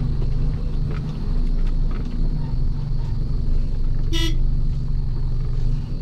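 Mercedes-Benz Actros truck's diesel engine running steadily, heard from inside the cab while driving. About four seconds in, a short horn toot cuts across the engine.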